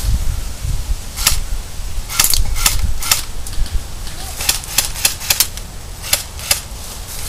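Airsoft guns firing single shots: about a dozen sharp cracks at irregular intervals, some in quick pairs. Wind rumbles on the microphone underneath.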